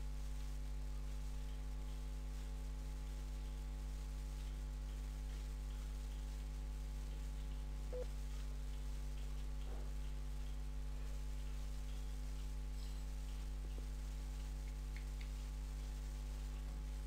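Steady electrical mains hum, one unchanging low drone with a ladder of higher overtones, with a faint short blip about eight seconds in.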